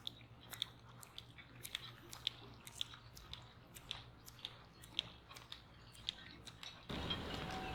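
Faint footsteps clicking about two to three times a second as a woman in wedge shoes walks. A steady rushing noise starts suddenly near the end.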